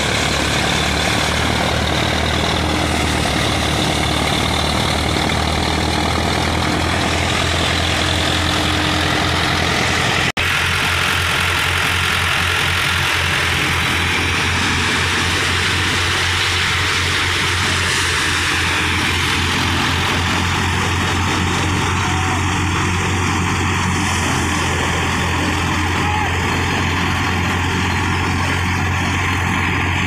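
A tractor's diesel engine running steadily under load, driving a wheat thresher through its PTO shaft, with the thresher's drum and fan whirring and rushing over the pulsing engine note. About ten seconds in the sound cuts and comes back with more of the thresher's hissing rush.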